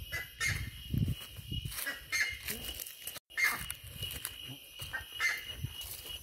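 Footsteps crunching and rustling through dry leaf litter, irregular steps, with a steady high-pitched buzz behind them. The sound cuts out completely for an instant about three seconds in.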